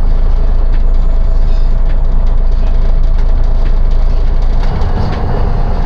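City bus driving, heard from inside the cabin: a loud, steady low rumble with a thin steady whine and scattered rattles and clicks from the bus body.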